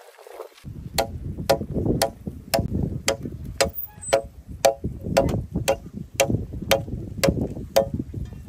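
Machete chopping into a wooden log: sharp knocks at an even pace of about two a second, starting about half a second in, over a steady low rumble.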